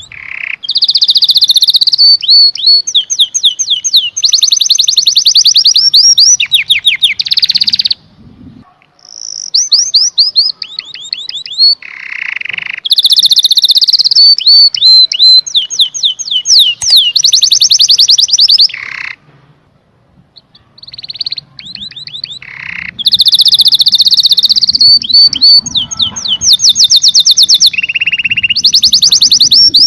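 Domestic canary singing in long loud phrases of rapid repeated notes and rolling trills, pausing briefly about 8 and 19 seconds in.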